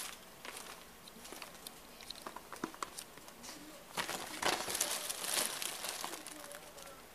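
Plastic rustling and crinkling as a cat shifts about on a plastic sheet, with scattered light taps. The rustle is loudest from about four to six seconds in.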